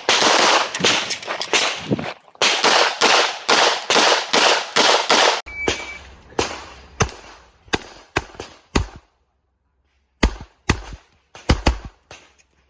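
Handgun shots fired in rapid strings. The first half is a dense run of shots, about two to three a second, each with a long echo. After an abrupt change a little past halfway, drier, sharper shots follow, some in quick pairs, with a second's pause before the last few.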